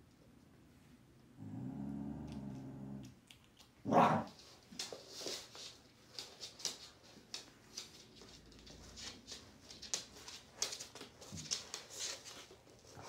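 Thai Bangkaew dogs, a mother and her puppy, play-fighting: a low steady growl lasting about two seconds, then one short loud bark about four seconds in, followed by a run of quick claw clicks and scuffling on a wooden floor with soft grumbles.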